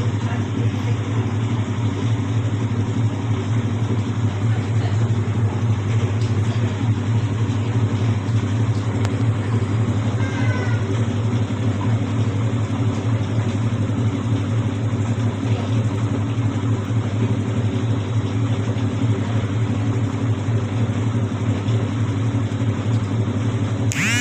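Whirlpool White Magic Royal Plus 7 kg top-loading washing machine running, its motor giving a steady hum with no knocking.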